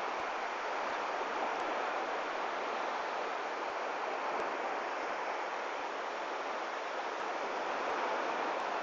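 Steady rushing of sea surf washing on the beach, mixed with wind on the microphone, swelling and easing slightly.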